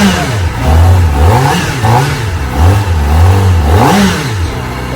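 Kawasaki Ninja ZX-4RR's 399 cc inline-four engine being revved in a series of quick throttle blips, the pitch rising and falling each time. The highest rev comes about four seconds in, then it drops back to idle.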